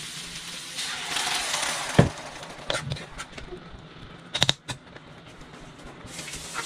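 A metal ladle knocking and clinking against an electric wok as a dish is stirred, with a loud knock about two seconds in and a quicker cluster of clinks later. Just before that a burst of sizzling hiss rises, as liquid goes into the hot pan.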